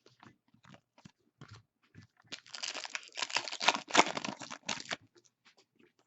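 Plastic card packaging crinkling and crackling for about two and a half seconds as it is handled and opened, with light taps and clicks of trading cards being handled before and after.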